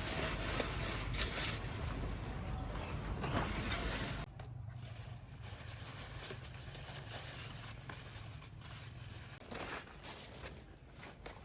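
Rustling and tearing of crop stalks being handled, dense for the first four seconds, then quieter and sparser with a short louder burst near the end.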